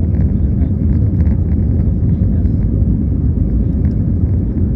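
Steady, loud, low rumble of a passenger jet airliner's engines and airflow.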